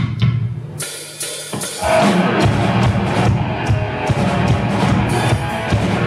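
Live metal band starting a song: a few drum and cymbal strokes, then about two seconds in the full band comes in loud, with electric guitars, bass and drums.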